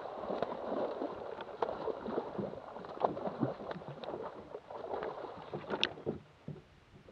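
Water splashing and sloshing beside a boat as a hooked channel catfish thrashes at the surface, with scattered clicks and knocks; it dies down about six seconds in.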